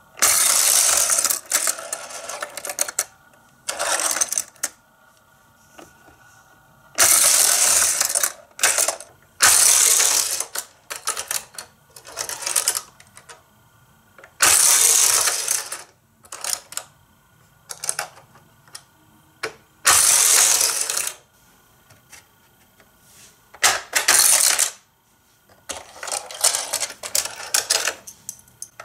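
Tiny Micro Machines die-cast race cars rolling and rattling along a plastic playset track, in about ten separate runs of a second or so each with short quiet gaps between them.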